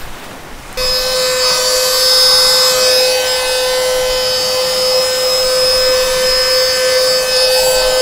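Handheld mini car vacuum cleaner switched on about a second in, its small electric motor then running at a steady high-pitched whine with a hiss of rushing air.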